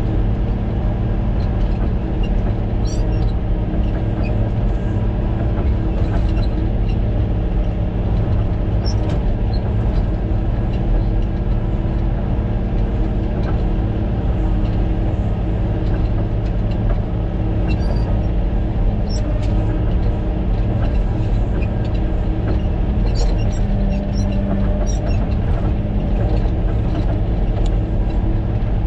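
Caterpillar motor grader's diesel engine running steadily under load, heard from inside the cab as the grader cuts a channel through dirt, with scattered light ticks and rattles.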